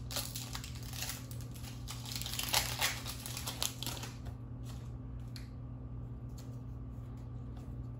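Foil booster-pack wrapper crinkling and tearing as it is ripped open, loudest about two to three and a half seconds in. It is followed by a few light clicks of trading cards being handled.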